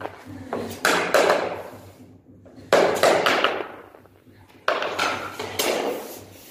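Small hammer knocking on the edge of a laminate floor plank to drive its joint tight against the neighbouring plank. The knocks come in three quick bursts of several strikes each, about two seconds apart.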